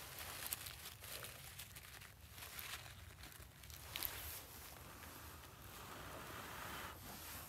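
Faint crinkling and rustling of dry leaves and paper tinder being handled over a nearly dead ember, with small crackles and one sharper tick about four seconds in.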